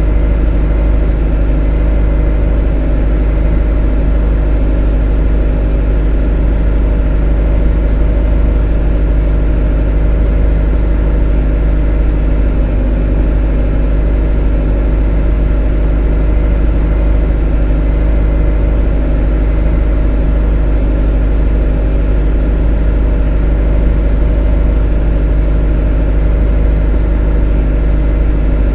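A motor running steadily, a loud unchanging drone with a deep low rumble under a stack of steady hum tones.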